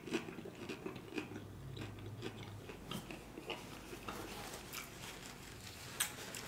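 A man chewing a mouthful of crunchy hard-shell taco close to the microphone: quiet, irregular crunches and mouth sounds.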